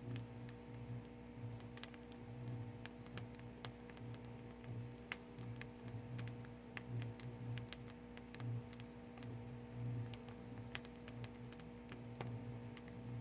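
Firewood burning in an agungi, a traditional Korean wood-fired furnace: irregular sharp crackles and pops over a steady low hum.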